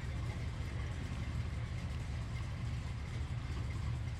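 1972 Dodge Charger's engine running steadily, a low, even sound heard from inside the car's cabin.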